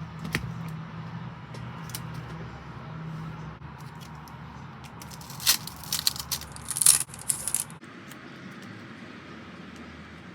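Merchandise packaging being handled and opened: scattered light clicks, then a cluster of louder crinkling and scraping about five to eight seconds in, over a low steady hum that stops near the end.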